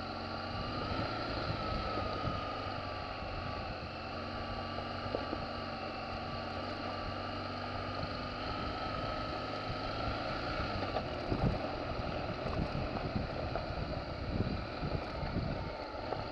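Adventure motorcycle engine running steadily as the bike rolls along a gravel forest trail, with a few short knocks from bumps and gravel in the second half.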